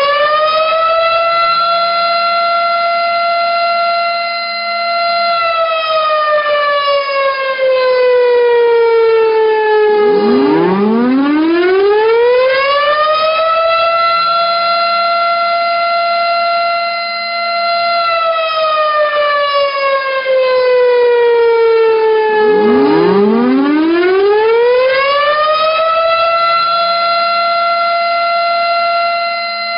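Siren wailing in long cycles: each cycle rises quickly to a steady high tone, holds it for several seconds, then slides slowly down before starting again, about every twelve seconds. It is sounded to mark the commemoration of the moment of Indonesia's proclamation of independence.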